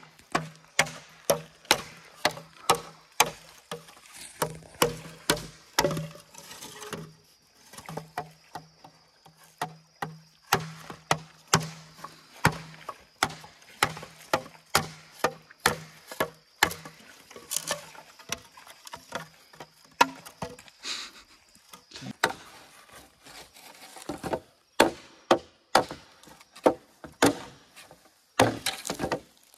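Bamboo being chopped: a long run of sharp woody chopping strikes, about two a second, with a couple of short pauses.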